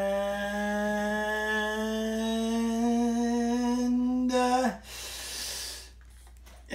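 A man humming one long, drawn-out dramatic note, his 'dun' of a suspense fanfare, its pitch creeping slightly upward before it breaks off and drops about four and a half seconds in. A brief soft hiss follows near the end.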